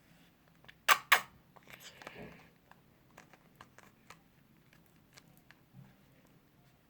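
Handling of a plastic glue bottle over a bowl while its glue is emptied out: two sharp clicks close together about a second in, then scattered faint ticks and taps.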